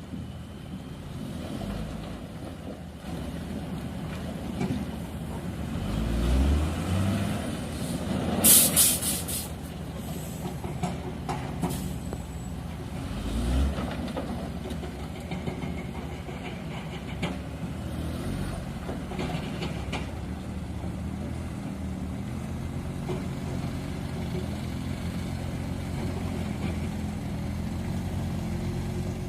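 Diesel engines of heavy construction trucks running steadily, with a short, loud hiss of air about eight and a half seconds in.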